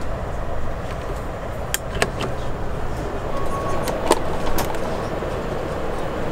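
Steady rumble and hiss of an Airbus A380's cabin, with several sharp plastic clicks as the seat's compartment panels are handled. The loudest click, about four seconds in, is a push-latch panel on the seatback springing open to a mirrored storage compartment.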